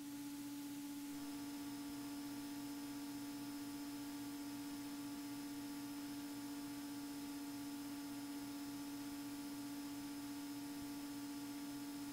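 Faint, steady cabin drone of a Beechcraft Bonanza A36 in flight: one strong steady tone with fainter tones above it and a faint rapid pulsing beneath.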